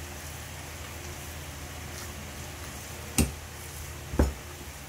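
Hands kneading a chicken and tofu mixture in a metal bowl, with two sharp knocks about a second apart near the end, over a steady hiss.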